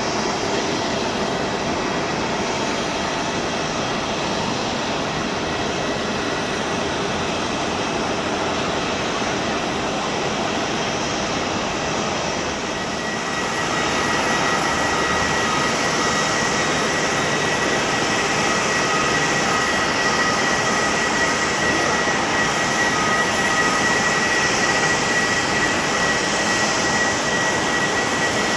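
Boeing 787-9 jet engines: first the steady distant rumble of an airliner climbing away after takeoff, then, about 13 seconds in, a second 787-9 running its engines at low power as it rolls along the runway, a steady rush with a high, even engine whine.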